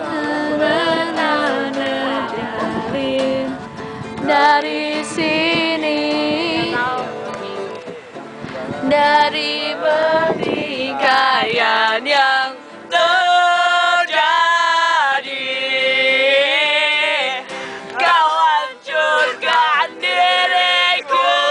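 A group of young men and women singing a pop song together along to a strummed acoustic guitar.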